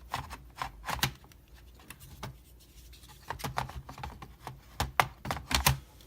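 Irregular plastic and metal clicks and taps of a laptop's parts being handled as a hard drive is fitted into an HP Pavilion g7 laptop, loudest in a quick cluster near the end.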